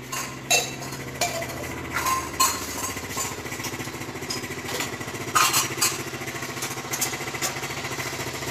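A machine running with a fast, even pulse that settles in after a couple of seconds, with a few sharp knocks and clatters over it, the loudest about five seconds in.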